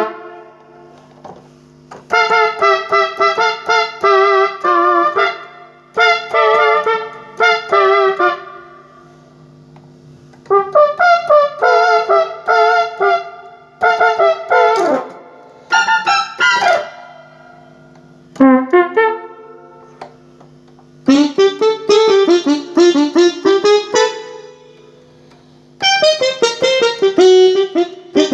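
Short keyboard phrases played on an S-Engine sound module's General MIDI bank, with a pause and a change of sound between phrases; several of the sounds have a wavering vibrato. A faint steady low hum runs beneath.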